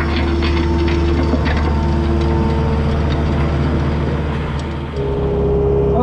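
New Holland L220 skid steer's diesel engine running steadily under load while driving a hydraulic rototiller through soil. About five seconds in, the drone shifts to a slightly higher steady tone.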